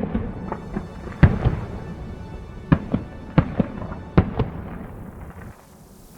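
Fireworks shells bursting aloft: a series of about ten sharp bangs at irregular intervals, each with a short echoing tail.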